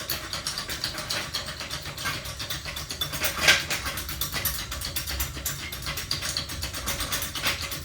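A floor jack being worked under a lawn mower: a rapid, uneven run of metallic clicks and rattles over a low hum, with one louder knock about three and a half seconds in.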